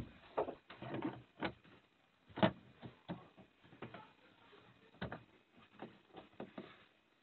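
Irregular knocks, clicks and scrapes of an interior van panel being handled and pushed back into place, with one sharper knock about two and a half seconds in.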